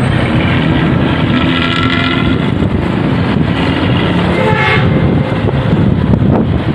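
Indonesian economy bus (bus bumel) diesel engine running through a loud 'ngorok' exhaust, a deep snoring rumble with a fast pulse. Higher tones sound over it briefly, around two seconds in and again near five seconds.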